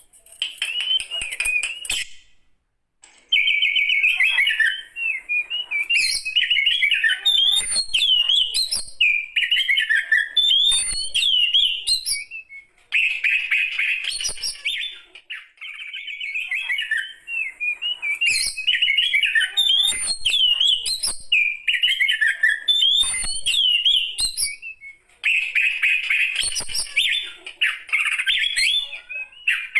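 A mature Oriental magpie-robin singing a loud, varied song of rapid warbling whistled phrases, in runs of several seconds broken by brief pauses.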